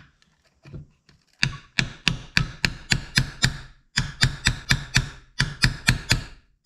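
Hammer rapidly tapping a steel punch, about three or four light strikes a second, starting about a second and a half in with a brief pause near four seconds. The punch is driving a stuck bolt out of an old RV waste tank valve held in a vise.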